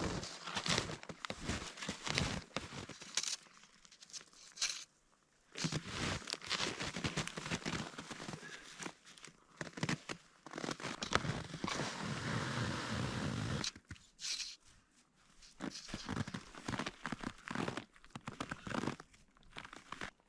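Snow crunching and crumpling in uneven bursts under someone moving through deep snow, with two short breaks where the sound cuts out.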